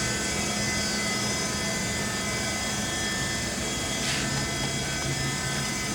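The power-driven sliding bed of a LeBlond 4025 NK heavy-duty gap lathe traveling open. Its drive runs as a steady machine hum with a constant whine and hiss.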